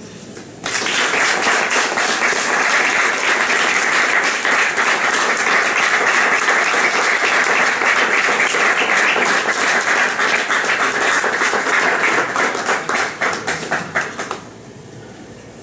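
Audience applauding. It starts suddenly about a second in, holds steady, then thins into scattered separate claps and stops shortly before the end.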